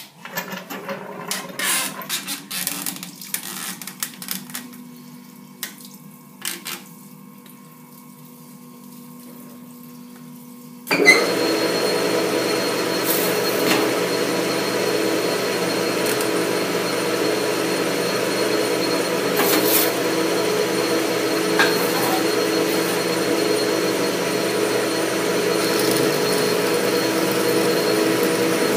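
Clicks and knocks of hands setting up the lathe and coolant hose. About 11 seconds in, the South Bend lathe and its coolant suddenly come on together: a steady machine hum with gear tones and splashing coolant, as a twist drill in the tailstock bores into the end of the arbor.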